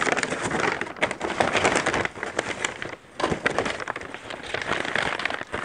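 Old brown paper bag crinkling and crackling as it is handled and folded by hand, with a short pause about three seconds in.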